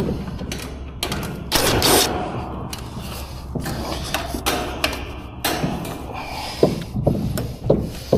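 Irregular tapping and knocking from floor installation work next door, the knocks coming about once or twice a second near the end, with a short rushing noise about a second and a half in.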